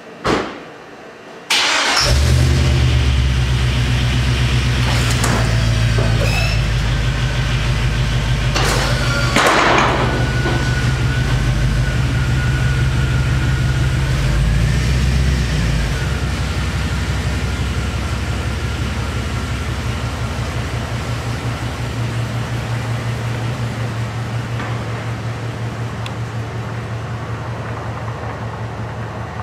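A Duramax 6.6-litre V8 turbo-diesel in a Chevy Silverado 2500HD starting up about a second and a half in after a single thump, then running at idle with a few sharp knocks. The engine sound slowly fades in the second half as the truck pulls out of the shop.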